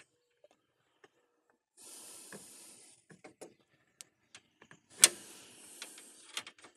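Hot tip of a Harbor Freight plastic welding iron hissing and crackling faintly as it melts nylon zip-tie plastic into a cracked plastic radiator tank, in two short stretches. Scattered small clicks run through it, and there is one sharp knock about five seconds in.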